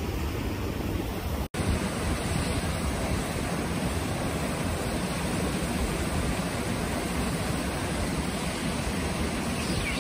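Steady rushing noise of wind buffeting the microphone over running water, with a brief dropout about a second and a half in.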